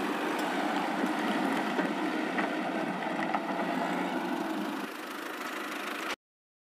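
Small electric toy motor whirring steadily as the toy tractor drives forward; it cuts off suddenly about six seconds in.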